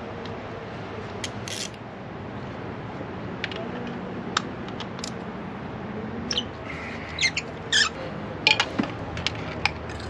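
Scattered sharp clicks and light metallic taps of hand tools and parts being handled during engine work, irregular and a few seconds apart, over a steady low hum.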